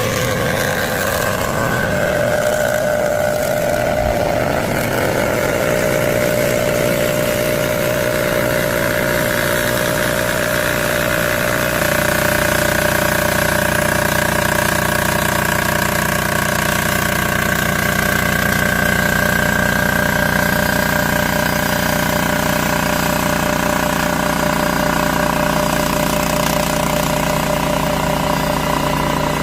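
Cylinder head surfacing machine running, its cutter milling across the deck of an aluminium 2.5 SOHC Subaru head on a slow feed. A steady machine drone with several held tones, whose pitch pattern shifts about twelve seconds in and then stays even.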